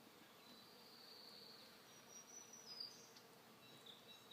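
Faint buzzing of honeybees around an opened nuc hive during a frame inspection, with thin high tones drawn out for a second or two at a time.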